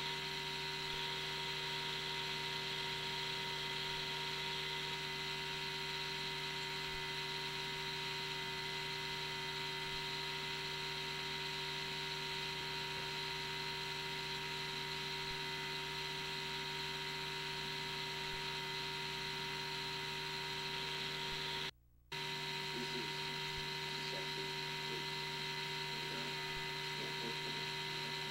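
Steady electrical hum with a high whine and hiss, unchanging in level, cutting out for a moment about three-quarters of the way through.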